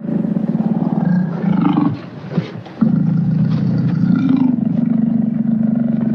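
Lion giving long, low, rough growling calls: one of about two seconds that trails off, then after a short break a second, steadier one of about three and a half seconds that cuts off suddenly.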